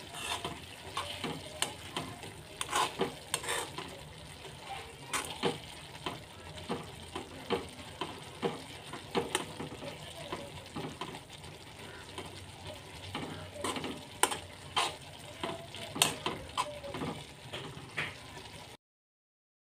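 Metal spoon stirring noodles in a hot metal wok, clinking and scraping against the pan at an irregular pace over a low sizzle. It cuts off abruptly near the end.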